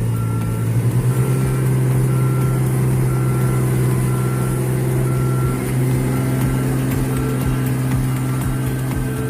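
Heavy vehicle's engine running steadily while its reversing alarm beeps evenly, a little more than once a second.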